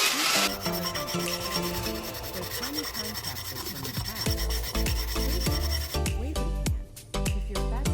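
Hand filing and rubbing on a small model car part, a rasping scrape, under background music. The music has melodic notes, then a deep sliding bass from about four seconds in and a steady ticking beat from about six seconds in.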